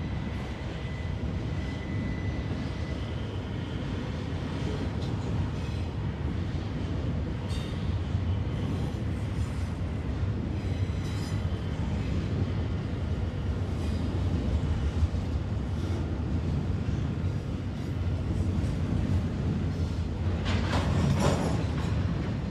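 Freight cars of a long BNSF intermodal train rolling past: a steady low rumble with scattered wheel clicks, and a brief high squeal near the end.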